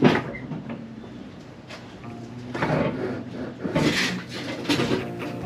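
A sharp knock at the start, then several quieter clunks and scrapes spread through the next few seconds.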